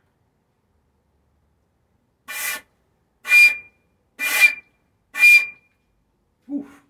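Four short, breathy, very high notes on a silver flute, about a second apart, all on the same pitch: the top D of a six-octave D major scale. A brief, quieter, lower sound follows near the end.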